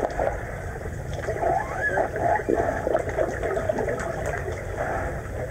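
Underwater pool ambience heard through a submerged camera: a steady muffled water rumble with small clicks and gurgling blips scattered through it.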